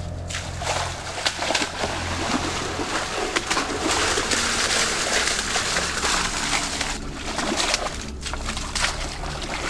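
Feet splashing and sloshing through a shallow muddy stream as people wade quickly along it, in many quick, irregular splashes.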